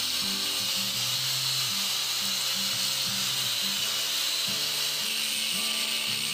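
Doliz BA730 angle grinder running at full speed with a metal cut-off disc, cutting into a 12 mm steel reinforcing bar: a steady whine over dense, hissing grinding noise, the motor holding its speed under load.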